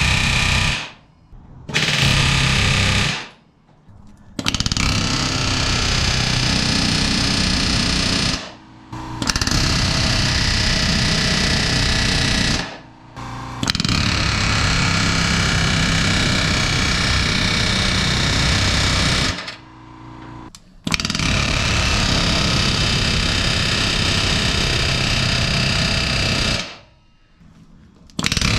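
Pneumatic rivet gun hammering solid aluminium rivets into an aluminium aircraft wing spar. It runs in long bursts of one to several seconds, with short breaks between them.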